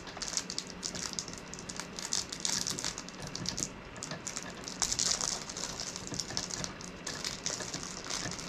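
Light, irregular clicking and rustling of small plastic parts and packaging being handled by hand, over a faint steady low hum.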